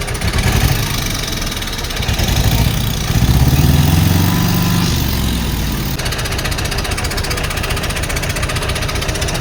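Heavy engine running with a steady low, pulsing throb. It swells louder about three seconds in, then settles back to idle.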